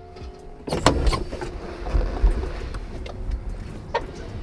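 A Jaguar XJ6 Series 3's driver's door opening, with sharp clicks about a second in. Then rustling and shuffling as a person climbs out of the seat, with another click near the end.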